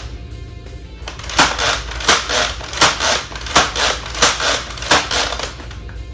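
Nerf Elite 2.0 Flip 32 lever-action dart blaster being primed and fired over and over: about six sharp snaps, a little under a second apart, each with a short rattle after it.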